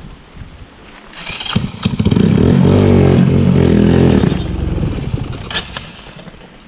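Motorcycle engine growing louder over about a second, loud for about two seconds, then fading away, as a bike rides past close by.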